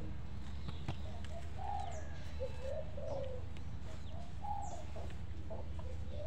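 Bird calls: a series of short, low calls repeating every second or so, with a couple of brief high chirps, over a steady low hum.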